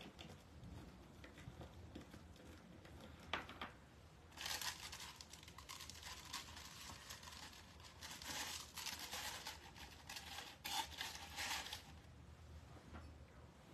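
Soft rustling and crinkling of stiff deco mesh ribbon as it is handled and gathered onto a wire wreath frame, lasting from about four seconds in to near the end, with a few light clicks before it.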